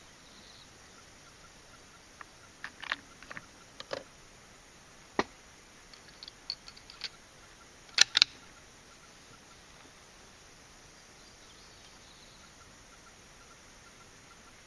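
Bolt-action rifle, a Ruger American Predator in 6.5 Creedmoor, being handled and its bolt worked: a scattered run of short clicks and metallic clacks, loudest as two sharp clacks close together about eight seconds in.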